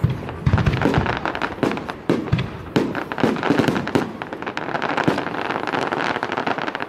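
Fireworks display: repeated bangs of bursting shells, with dense crackling through the second half.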